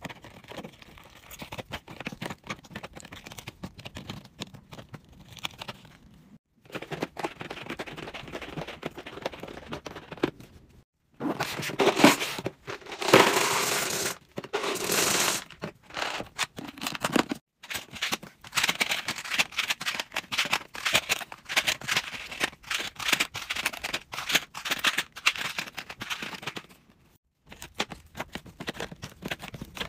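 Plastic candy wrappers crinkling and packs clicking as they are set into cardboard display boxes, in short clips separated by brief breaks. In the middle there is a louder, fuller stretch of loose hard candy pouring into a clear plastic tub.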